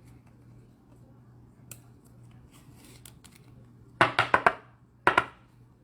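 Two short bursts of rapid sharp clicks and rattles, the first about four seconds in and a shorter one a second later, over a faint steady hum.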